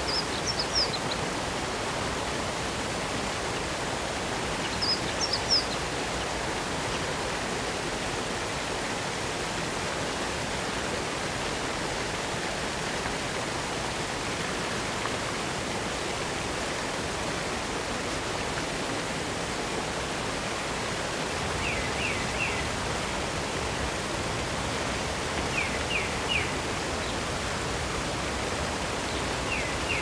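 Waterfall rushing steadily. Over it, a bird gives a few quick high chirps near the start and again about five seconds in, then a short call of three falling notes three times in the second half.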